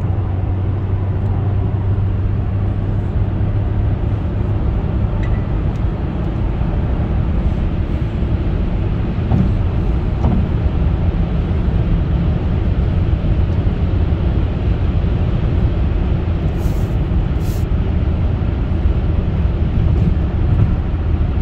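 Opel Insignia 1.6 CDTi diesel driving at motorway speed: a steady low engine drone under even road and tyre noise, with no knocking, as the car runs after a new timing chain, middle chain gear and oil pump.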